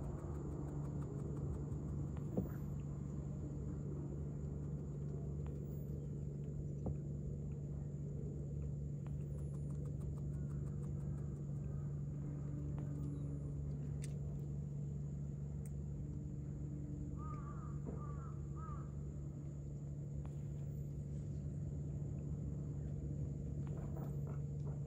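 Outdoor ambience: a steady low mechanical hum, like distant machinery or an idling engine, with a brief cluster of short bird calls about two-thirds of the way through.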